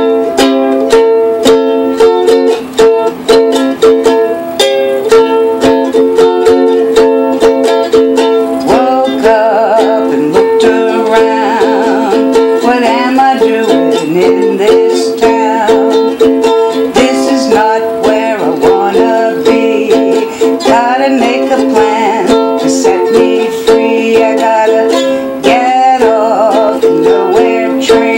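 Music: steady chords strummed on an acoustic stringed instrument, with a wavering melody line over the strumming from about nine seconds in.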